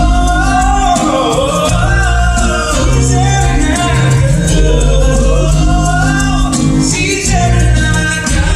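Live acoustic band playing a song, with a voice singing a gliding melody over steady bass notes and light percussion.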